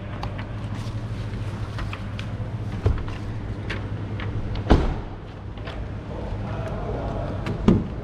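Three heavy thuds of a Ford Ranger Double Cab pickup's doors being shut, about 3 s, 4.7 s and 7.7 s in, the last two the loudest, over a steady low hum.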